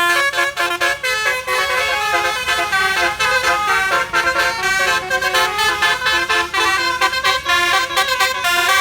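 A bus's telolet basuri musical air horn playing a quick melody of tooting notes, the pitch jumping from note to note.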